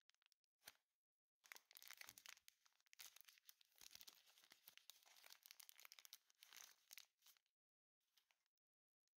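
Thin plastic snack wrapper being torn open and handled: a quiet, dense crinkling and crackling from about a second and a half in until near the end, with a short crinkle before it and another near the end.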